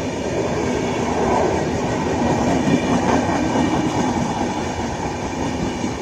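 Express train's passenger coaches passing at speed: a steady, loud rumble of wheels running over the rails, swelling a little about a second in and easing again near the end.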